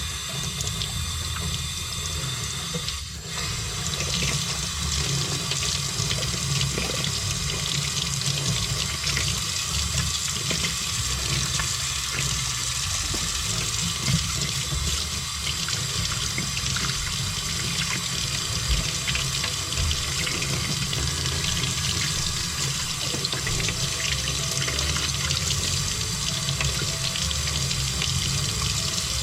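Tap water running steadily as sooty sight-glass valves from a steam boiler are rinsed under it, with a few light knocks of the parts.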